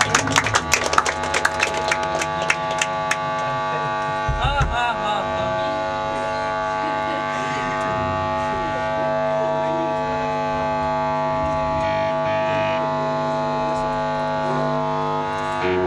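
A rock song ends on a quick run of drum hits. Then the band's amplifiers drone steadily with feedback and hum, several steady tones sounding together.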